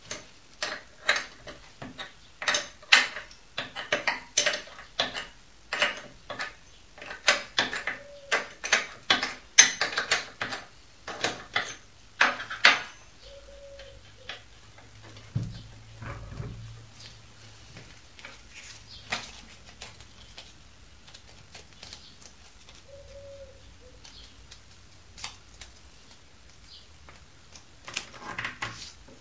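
Metal hand tools, open-end wrenches and hex keys, clinking and clattering as they are handled and set down on a wooden workbench: a quick run of sharp clinks for about the first dozen seconds, then only a few scattered taps, a dull thump, and a short burst of clinks near the end.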